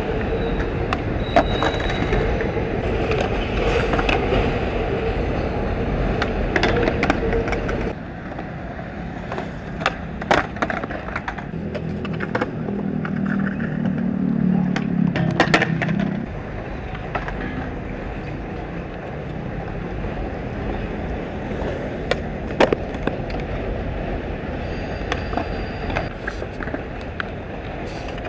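Skateboard wheels rolling on concrete, with sharp clacks here and there of boards popping and landing. The rolling drops in level about eight seconds in.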